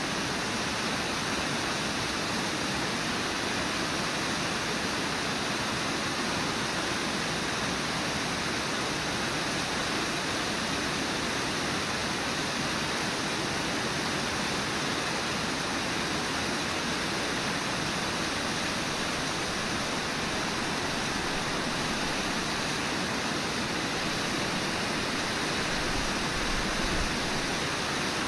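Steady, even rush of water pouring over Brooks Falls, a wide, low waterfall on the Brooks River.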